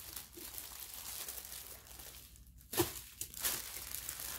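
Clear plastic bag crinkling and rustling as small sealed packets of diamond painting drills are pulled out and spread on the table, with a single sharp tap a little under three seconds in.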